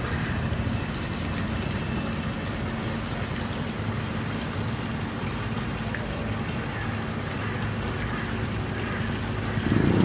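Park fountain's thin water jets splashing into a stone basin, an even rain-like patter over a steady low hum of city traffic. A louder low rumble comes in just at the end.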